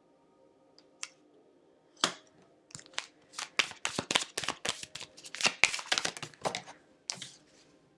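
A deck of tarot cards being shuffled by hand: a light tap about a second in, a sharp snap at two seconds, then a dense run of quick card flicks and riffles for about four seconds, with one last flick near the end.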